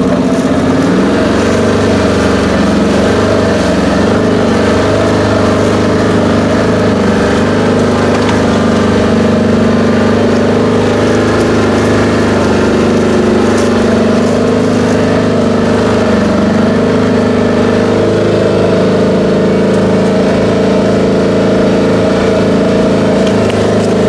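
Vehicle engine running loud and steady at an even speed, with no rises or falls in pitch.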